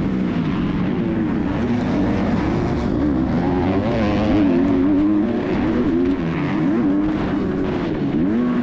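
Kawasaki 250cc four-stroke motocross bike engine at race pace, the revs climbing and dropping again and again as the rider works the throttle and gears over the rough track.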